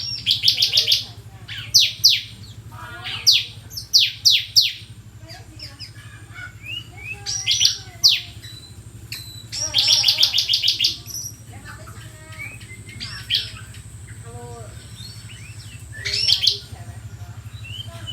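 Bar-winged prinia (ciblek) singing in bursts of rapid, falling high notes, each burst about a second long and repeated several times, with softer chirps between them. A steady low hum runs underneath.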